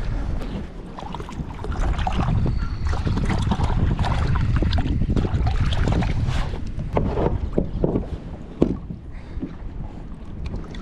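Wind buffeting the microphone over water lapping and splashing against a kayak hull, with a sharp knock about eight and a half seconds in.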